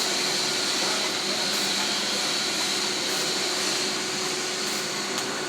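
Argon-shielded (TIG) welding arc running steadily: an even hiss and buzz with a faint high whine.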